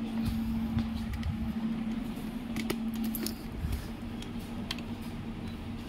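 Scattered light clicks and clinks, a few a second at irregular intervals, over a steady low hum.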